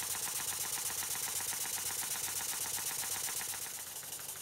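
Stuart Models beam engine running fast on compressed air, a rapid, even clatter of ticks from its moving parts, a little quieter near the end. The slight knock in it is, by the owner's account, play on the pins through the beam and an ill-fitted Watts parallel motion.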